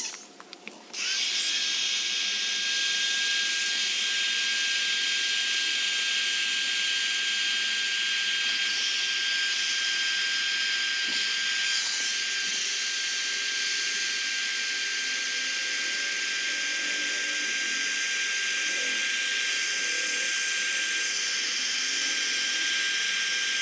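Handheld electric air pump running steadily, blowing air into an inflatable chair through its valve: a high-pitched whine that starts about a second in and eases slightly in level about halfway through.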